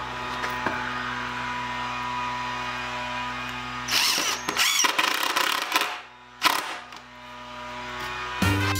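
DeWalt cordless impact driver running in two bursts as it drives screws into a wooden shutter slat: a long burst with a wavering whine about four seconds in, then a short one about a second later.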